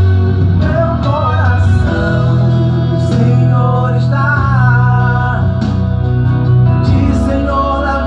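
A man singing a song over a backing track with guitar and a steady bass line.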